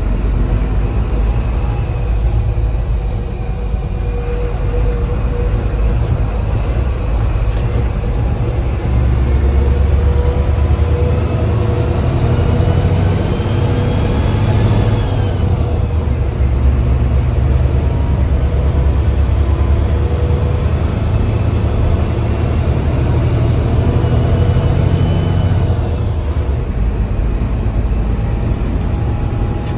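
Mercedes-Benz bus diesel engine pulling under load, its turbocharger whistling over the low rumble. The whistle rises and falls twice, climbing to a peak about halfway through and again near the end.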